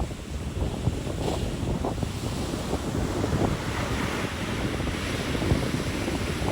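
Ocean surf washing on a beach, with wind buffeting the microphone in uneven gusts. The wash of a wave swells up about halfway through.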